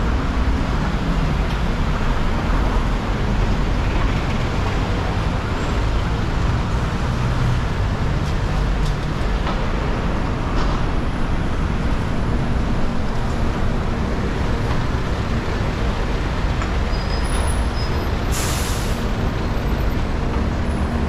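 Steady city road traffic, with buses and other vehicles running close by. Near the end there is a short air-brake hiss.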